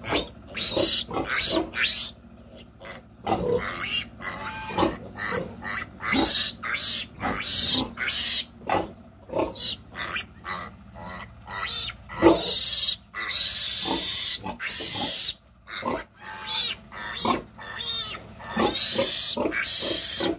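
A 14-day-old piglet squealing over and over in distress while held upside down by its hind legs. It is a run of loud, high-pitched squeals with short breaks, several held for a second or more.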